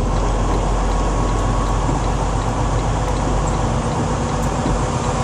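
Vehicle engine running steadily, heard from inside the cab as an even hum with a low drone underneath.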